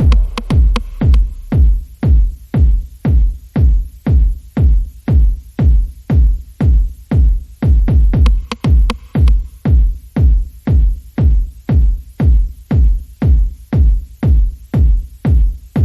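Electronic dance music with a steady pounding kick drum, about two beats a second.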